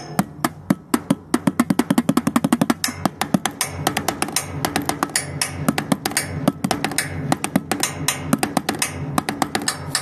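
Fast drumming on paint pots: a continuous stream of sharp strikes, with a burst of very rapid strokes between about one and three seconds in.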